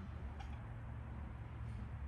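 Quiet background noise: a steady low rumble with one faint click about half a second in.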